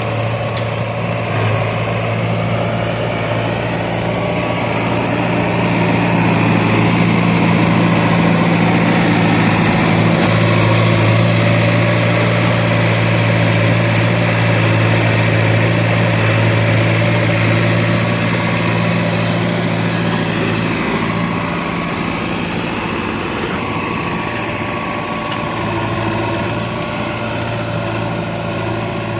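Heavy machine's diesel engine running steadily at a low, even speed. It grows a little louder for a stretch in the middle, then eases back.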